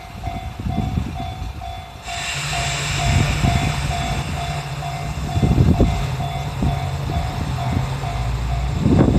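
Japanese level-crossing alarm clanging steadily about twice a second. About two seconds in, a railcar's steady engine drone and a hiss join it as the train moves through, and a louder low rumble rises near the end.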